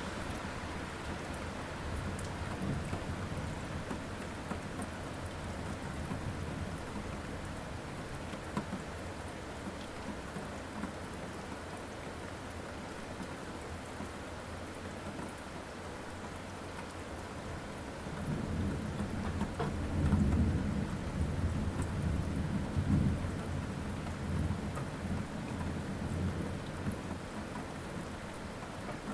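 Steady rain falling, with rolling thunder: a long low rumble swells about two-thirds of the way through, peaks twice, then dies away.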